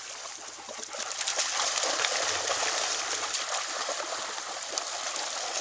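Several dogs wading and playing in a shallow pond, their legs churning the water: a steady mix of splashing and sloshing with many small quick splashes.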